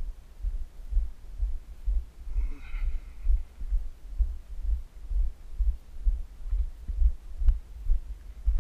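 Footsteps of a person walking across a wooden footbridge and onto a gravel path, heard as low dull thuds about twice a second.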